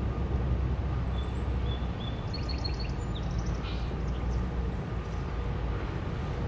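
Steady low engine rumble of a small log-boom tug working among floating logs, with a few short bird chirps in the middle.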